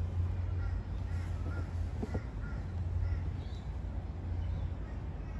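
Birds calling in the background, a scatter of short high chirps, over a steady low hum.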